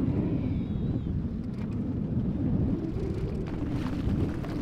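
Wind buffeting the microphone on a boat at sea: a steady, irregular low rumble.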